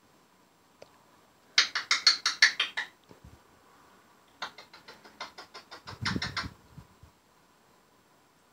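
Pet parrot making rapid clicking chatter, about ten clicks a second, in two runs. The first run is loud and starts about a second and a half in. The second, in the middle, ends with a lower, throatier sound.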